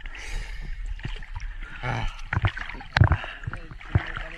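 Sea water splashing and sloshing around a camera held at the surface, with a few sharp knocks and thumps, the loudest about three seconds in.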